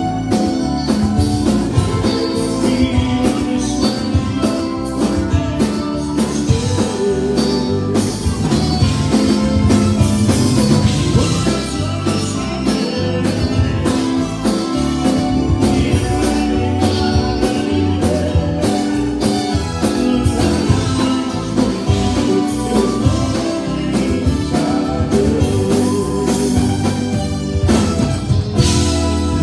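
Live Tejano conjunto band playing a song: button accordion, electric guitars, bass and drum kit, with sung vocals.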